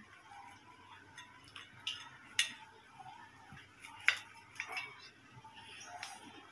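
Knife cutting an omelette on a glass plate, the blade clicking against the glass a few times, loudest about two and a half and four seconds in.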